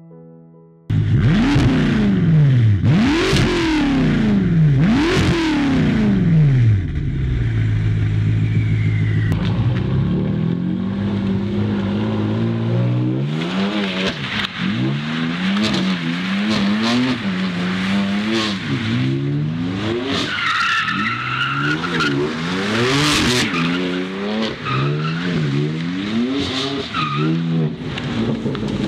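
2018 BMW M6's twin-turbo V8 sounding through its newly fitted exhaust. About a second in it revs sharply three times, each rise falling back, then settles to a steady idle. After that the engine speed rises and falls again and again, with a brief high squeal about twenty seconds in.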